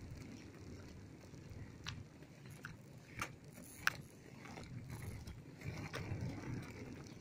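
Inline skate wheels rolling over a concrete road: a faint low rumble, broken by a few sharp clicks and ticks as the wheels pass over pebbles and cracks.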